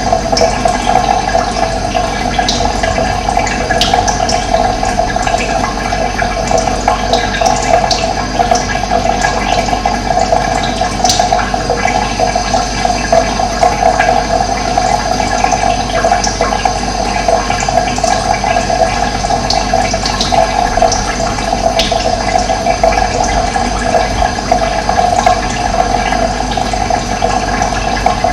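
Steady rush of running water, with scattered brief high chirps from wild birds over it.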